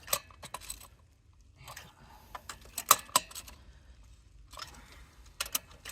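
Scattered, irregular metallic clicks and clinks of small metal tools or parts being handled, with a cluster near the start, a sharp pair about three seconds in and a few more near the end.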